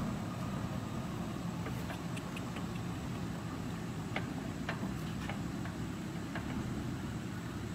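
Diesel engine of a JCB 3DX backhoe loader running as a steady low hum, fading slightly as the machine drives away, with scattered faint clicks over it.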